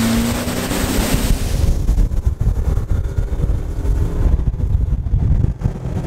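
Bass boat running across a lake at speed, with no voices: spray and hull hiss over the first second or two, then mostly wind buffeting the microphone in uneven low gusts.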